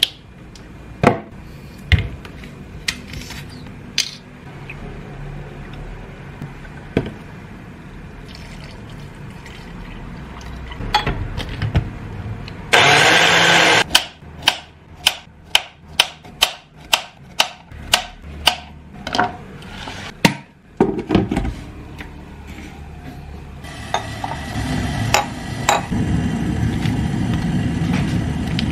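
A brief loud whirr of an electric hand blender about 13 seconds in. Then a knife cuts a banana on a cutting board, about two sharp knocks a second for some six seconds. Near the end an electric kettle starts heating with a steady hiss that builds.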